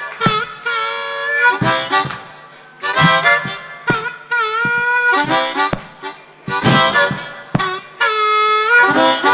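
Harmonica played into a vocal microphone in short held phrases, with some notes bent downward in pitch.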